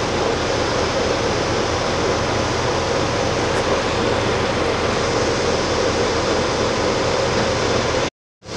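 Steady cabin noise inside a running single-deck bus: engine hum and road rumble blended into an even rush. It cuts out abruptly to silence for a moment near the end.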